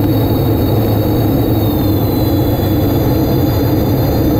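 Unlimited hydroplane's turbine engine running at speed, heard from on deck over the rush of wind and water. A steady high whine sits above the engine noise and dips slightly about one and a half seconds in.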